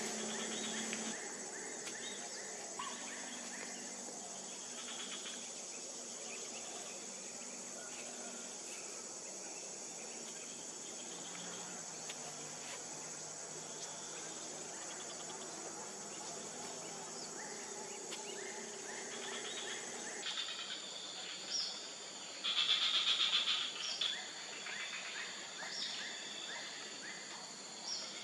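Steady high-pitched drone of insects with scattered short bird chirps. Near the end comes a louder noisy burst lasting about a second and a half.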